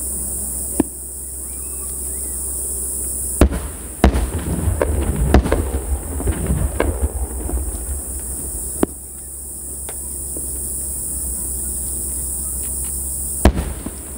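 Underwater starmine fireworks going off: sharp bangs about three and a half, four and five and a half seconds in and again near the end, with a run of crackling pops between about four and eight seconds.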